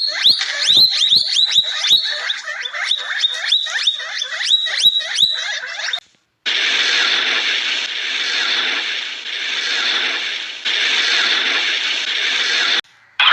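An animal's rapid series of short calls, each rising in pitch, about three a second for some six seconds. After a brief silence comes a dense rushing noise that swells and fades in waves, ending abruptly.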